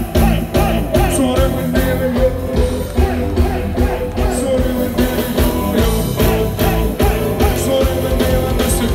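A live band playing with a steady beat: drums, keyboards and electric guitar.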